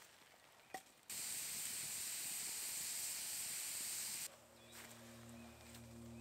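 A loud, steady hiss lasting about three seconds that starts and stops abruptly. Near the end, background music with low held tones comes in.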